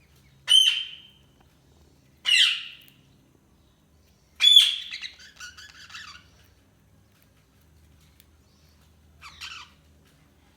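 Budgerigar calling: three loud, sharp calls about two seconds apart, the third running on into a second and a half of chattering warble, then a short, softer chatter near the end.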